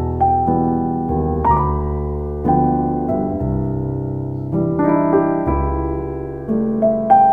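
Background music: a slow piano piece, with bass notes held under gently changing chords.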